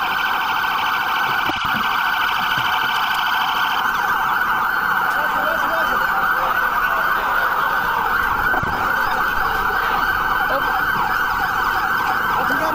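Several police car sirens sounding at once, their rising and falling wails overlapping. A rapidly pulsing higher siren tone cuts off about four seconds in.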